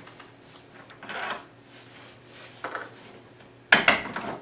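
An adjustable wrench and a metal pulley being worked loose on a bandsaw shaft: some scraping and rubbing, then a sharp metallic clank near the end.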